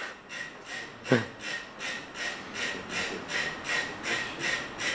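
Many mechanical metronomes standing on a shared movable base, ticking almost in unison at about three ticks a second. They have nearly all synchronised through the common base, with a straggler or two still falling into step. Heard played back through loudspeakers in a lecture room.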